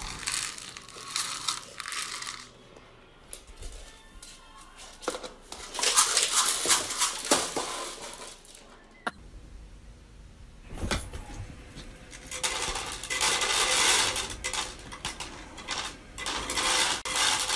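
Dry pet kibble rattling and clattering in several bursts as it is scooped from a canister and spills onto hard surfaces.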